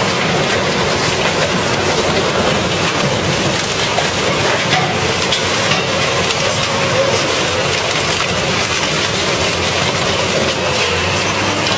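Industrial metal shredder grinding up scrap car parts: a loud, steady rattle of metal with many small knocks and clanks.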